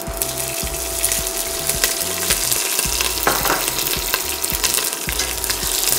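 Green chillies frying in hot oil with shahi jeera and bay leaves in a stainless steel pot: a steady sizzle, with faint clicks of a steel ladle stirring.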